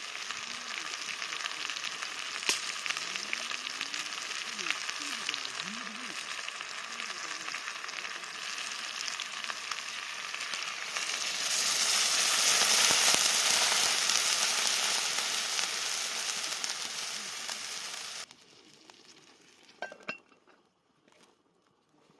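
Food sizzling as it fries in a pan, a steady hiss that grows louder about halfway through, then cuts off abruptly near the end, leaving a couple of faint clicks.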